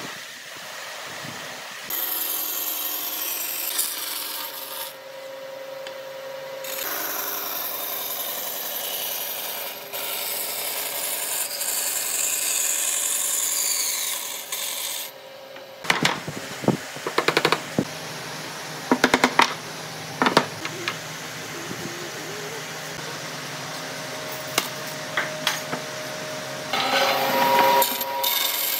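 Band saw running and cutting pine boards, with long, steady stretches of the blade working through the wood. About halfway through there is a run of sharp knocks.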